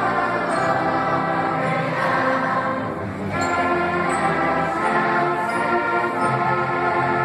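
A large student choir singing sustained notes with instrumental accompaniment, with a brief drop in loudness about three seconds in.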